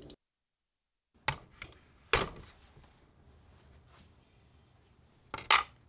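A solid copper ingot set down on a digital scale's metal pan: a light click and then a sharp knock about two seconds in, with another quick cluster of knocks near the end as more copper is added to the pan.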